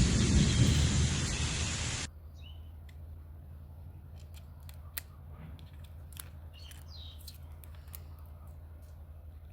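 A loud, steady rushing noise cuts off abruptly about two seconds in. It leaves faint scattered clicks, a few short chirps and a low hum.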